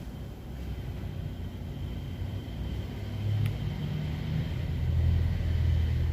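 A low mechanical rumble, steady and pitched like a motor, growing louder about three seconds in, with one sharp click midway.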